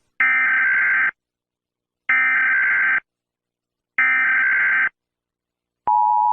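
Emergency Alert System header: three bursts of warbling digital data tones, each about a second long and a second apart. Near the end the EAS attention signal starts, a steady two-tone alarm, marking the start of an emergency alert.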